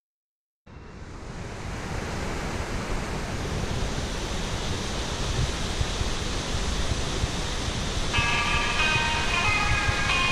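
Rushing river water: a steady hiss that fades in just under a second in and slowly grows louder. A tune of high, clear notes comes in over it about eight seconds in.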